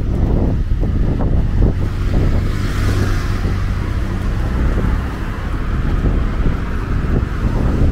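City street traffic with cars driving by; one car passes close about three seconds in, its tyre and engine noise swelling and fading. Steady low wind rumble on the microphone runs underneath.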